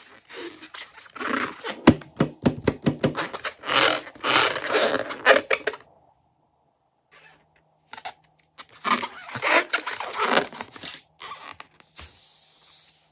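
Hands squeezing and rubbing a filled latex balloon: rubbery scraping and crackling in quick irregular bursts, in two spells with a short silence between.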